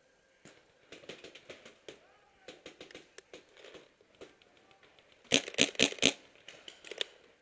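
Paintball marker firing a rapid string of about six sharp shots a little past halfway through, after scattered fainter pops and clicks, with faint distant voices.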